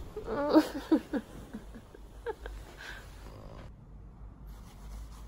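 A short drowsy mumble or groan from a person just woken in bed in the first second, followed by a couple of faint clicks and then a quiet room hum.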